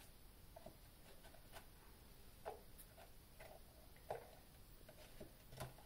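Near silence with a few faint, scattered light clicks and taps, irregularly spaced, about eight in all.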